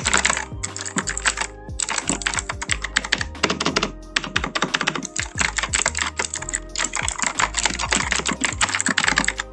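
Fast typing on a Cosmic Byte Pandora mechanical keyboard with clicky Outemu blue switches, a dense clatter of key clicks in bursts with a few short pauses.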